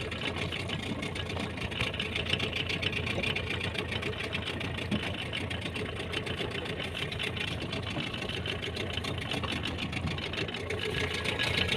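Fishing boat's engine idling steadily.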